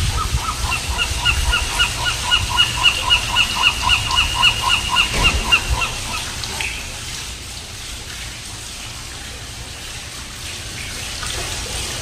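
Western gull giving its long call to its mate: a rapid series of about twenty yelping notes, roughly four a second, that stops about six seconds in, with one more note just after. The steady splash of a fountain runs underneath.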